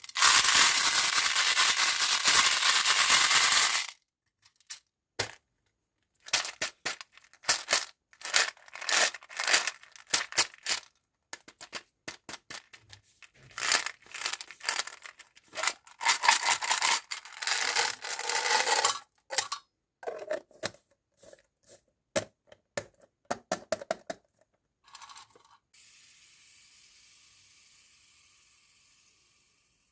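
Plastic packaging being torn open and crinkled, followed by many small clicks and rattles of hard little items being handled. A faint hiss fades out near the end.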